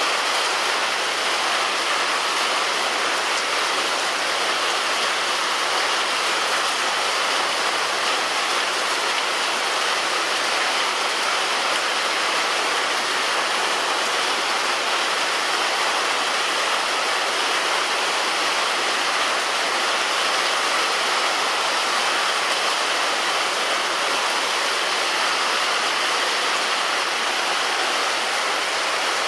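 Heavy rain falling on a roof, a steady dense hiss with no single drops standing out.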